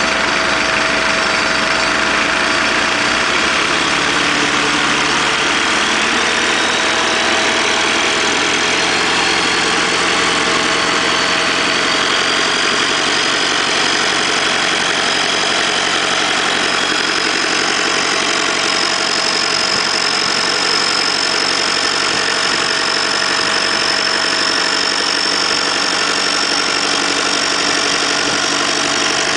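Mitsubishi 4D56 2.5-litre four-cylinder turbodiesel, out of the vehicle, idling steadily, with a thin high whine that slowly rises in pitch.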